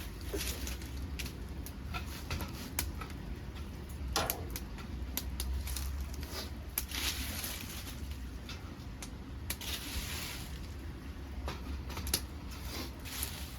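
Dead podocarpus wood burning in a homemade secondary-combustion wood-gas stove: irregular crackles and sharp pops over a low steady rush.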